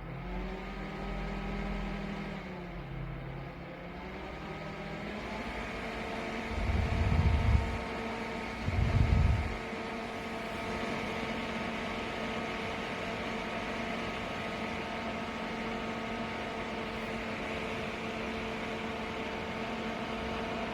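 Small portable evaporative air cooler's fan motor running with a steady hum of several tones; its pitch dips and rises over the first few seconds, then holds level. Two low thuds come about seven and nine seconds in.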